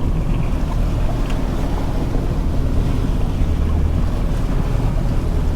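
Fishing boat's engine running steadily at trolling speed, with wind buffeting the microphone and water washing past the hull.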